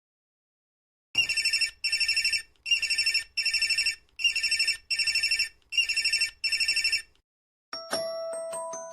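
Telephone ringtone in the old bell style: a rapid trilling ring sounding in four double rings (ring-ring, pause). Near the end a different ringtone begins, a quick run of chime-like struck notes.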